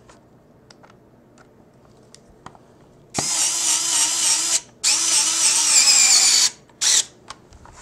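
Small cordless electric screwdriver driving screws back into a plastic battery case. After a few faint handling clicks, its motor runs in two whining spells of about a second and a half each, then gives one brief blip near the end.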